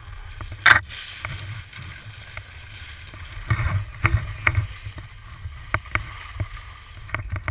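Skis sliding down a groomed slope: a steady hiss of edges on snow over a low rumble, broken by sharp clicks and knocks, the loudest about a second in and several more around the middle.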